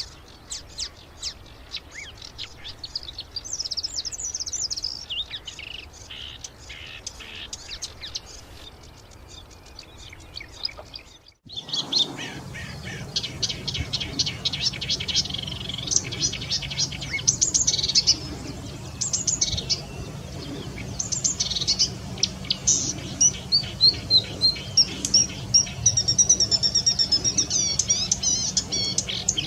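Marsh warbler singing its fast, varied song, a rapid run of chirps, trills and mimicked calls of other birds. About eleven seconds in the song breaks off briefly and resumes louder over a steady low hum.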